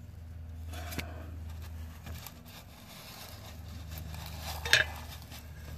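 Recoil starter on a Tecumseh 6 hp engine slowly rewinding a new pull rope under its re-tensioned spring: faint rope scraping and rubbing in the housing, with light clicks about a second in and a sharper click near the end.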